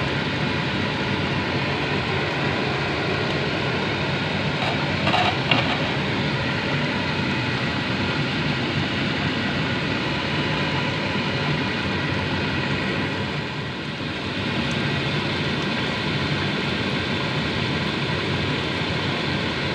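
Steady rushing noise at the stove, where fish bubbles in oil and yogurt in a nonstick frying pan, with a short clatter about five seconds in.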